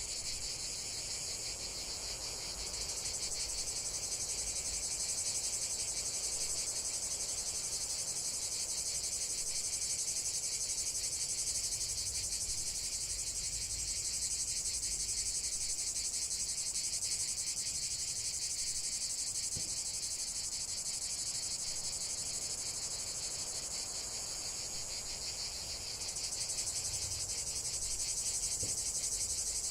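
Crickets chirping in a dense, unbroken high-pitched chorus.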